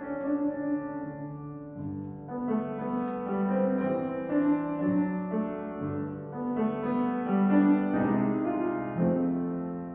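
Steinway & Sons grand piano played solo: a slow melody over sustained chords, soft at first, then fuller from about two seconds in and loudest near the end.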